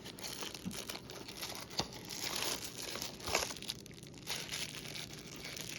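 Crinkling and rustling of handled packaging, with scattered light clicks and taps.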